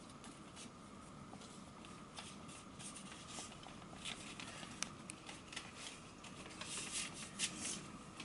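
Faint rustling and crinkling of paper sheets being handled and turned over, in short scattered bursts that grow busier near the end. A faint steady hum runs underneath.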